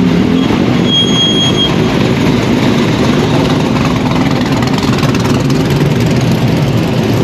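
Modified cars' engines running at low revs as the cars roll slowly past one after another, a loud steady low rumble. A brief high-pitched tone sounds for under a second about a second in.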